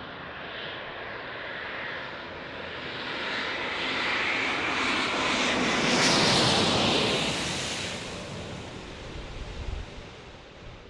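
Airbus A350's Rolls-Royce Trent XWB turbofans passing low overhead on landing approach. The jet noise swells to its loudest about six seconds in, then fades.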